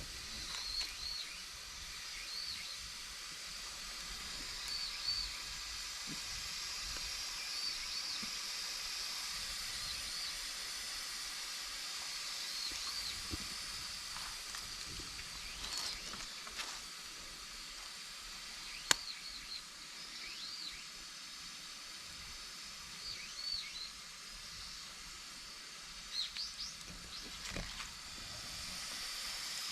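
Campfire burning with a steady hiss and scattered crackles, and one sharp pop about 19 seconds in.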